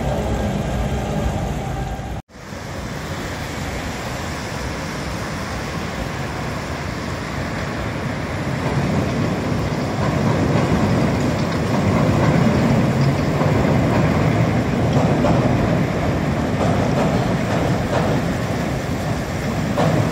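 Chicago 'L' elevated train running over the steel elevated structure and bridge, growing louder from about the middle as it comes closer, over steady city traffic noise.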